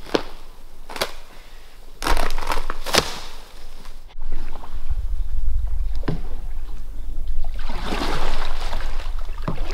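Footsteps pushing through wet ferns and undergrowth, about one rustling step a second. Then kayak paddle strokes swish and splash in calm water over a low rumble.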